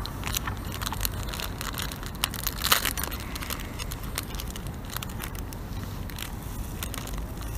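Small plastic bait packet crinkling and rustling in the hands as it is opened and foam bait pellets are picked out: a string of short, uneven crackles.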